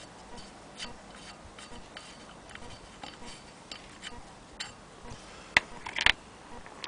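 Willcox & Gibbs hand-crank sewing machine's mechanism ticking lightly and irregularly as its cast-iron hand wheel is turned slowly by hand. A few sharp, louder knocks come near the end.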